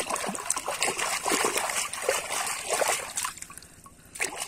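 Water splashing and sloshing as a plastic toy is swished by hand through shallow water to wash off mud. The splashing eases about three seconds in as the toy is lifted out dripping, then picks up again briefly near the end.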